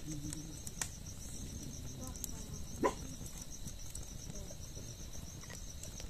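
Crickets chirping steadily at night in a rapid, even pulse, with a few faint sharp crackles from a wood fire.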